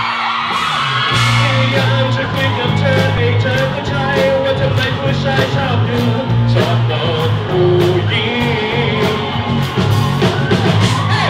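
Live rock band playing loudly: electric guitars, bass and a drum kit keeping a steady beat, with a singer's voice over the top.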